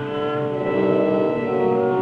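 Orchestral film score: bowed strings holding sustained chords that shift to new notes about half a second in and again near the end.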